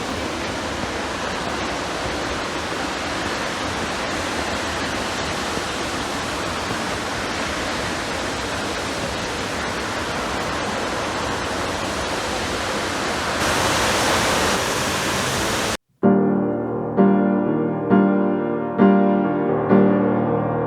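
Waterfall rushing: a steady wash of falling water that grows louder about two-thirds of the way in. It cuts off suddenly near the end, and piano music with notes struck about once a second begins.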